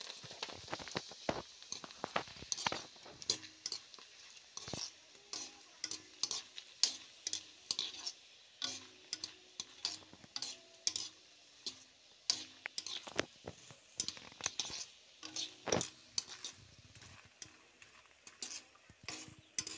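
A metal spatula scraping and clinking against a black iron kadai as ring-shaped fryums are stirred, with a steady sizzle of frying under the many irregular scrapes.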